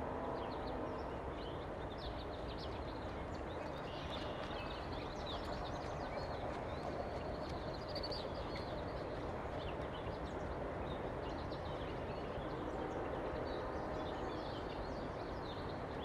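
Outdoor ambience: many birds chirping and singing over a steady background hiss.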